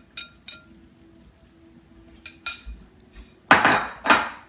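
A metal spoon clinks and scrapes against a glass mixing bowl as coleslaw is scraped out, several short clinks with a brief ring, then two louder scraping noises near the end.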